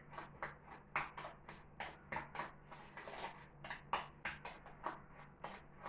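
Spoon stirring a sugar and coconut oil scrub in a bowl: a run of short gritty scrapes, about two or three a second.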